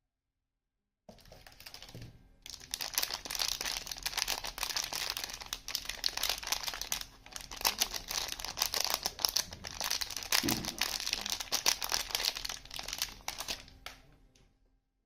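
Soap packaging being unwrapped by hand: the wrapper crinkles and crackles densely, starting about a second in and dying away near the end.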